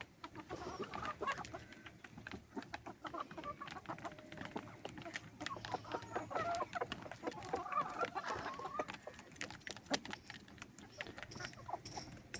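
Chickens clucking, with many short calls overlapping, mixed with frequent sharp clicks and taps.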